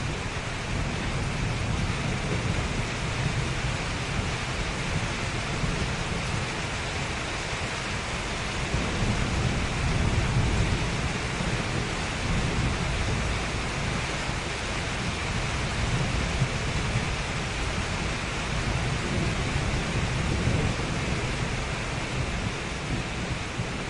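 Outdoor city street ambience: a continuous, even hiss with a heavy low rumble that swells and fades, with no distinct single event standing out.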